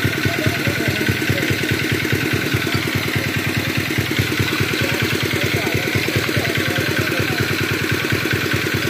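Small engine of a pond-dewatering water pump running steadily, chugging at about nine beats a second.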